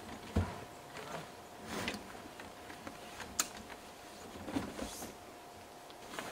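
Hardshell rooftop tent being set up by hand: fabric rustling and scraping in several short strokes, with a dull thump about half a second in and a sharp click a little past three seconds.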